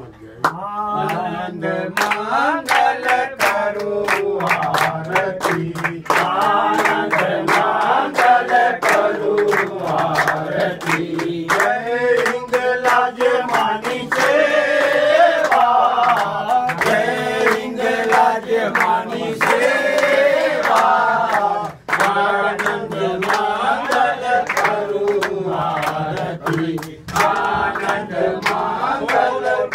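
A group singing an aarti hymn together, with hands clapping in time to it.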